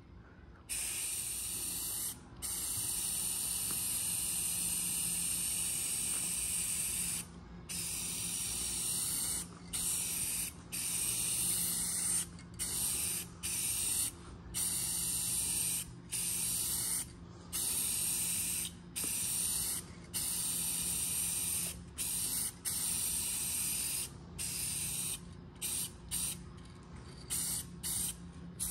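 Aerosol spray-paint can hissing as gloss black paint goes on in passes: first one long pass of about six seconds, then many shorter bursts with brief pauses, growing shorter near the end. A faint steady low hum sits underneath.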